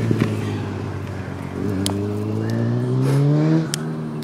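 A motor vehicle engine running, its pitch rising slowly for about two seconds and then dropping away suddenly near the end. Two sharp clicks, one about two seconds in and one near the end.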